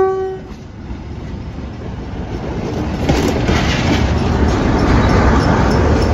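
Class 47 diesel locomotive passing close at low speed, its Sulzer V12 engine and wheels rumbling louder as it draws alongside, with faint rail clicks. The last of a horn note dies away at the very start.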